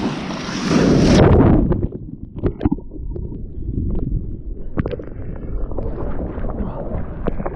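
A wave of seawater washing over a kayak: a loud rush of water that peaks about a second in, then cuts off to a dull, muffled low sloshing with small knocks as water covers the microphone.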